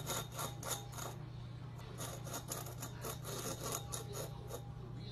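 Cat scraping and clicking at a bowl on a stone countertop: a run of short, irregular scratchy scrapes over a low steady hum.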